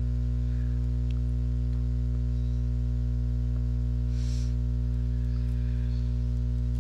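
Steady low electrical mains hum in the recording, with a few faint clicks and a brief soft hiss about four seconds in.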